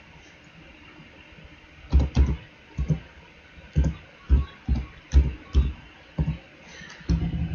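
Computer keyboard being typed on, with perhaps a mouse click among the strokes: about ten short, dull, irregular taps starting about two seconds in, ending in a quick run of strokes near the end, as a text command is entered in the CAD program.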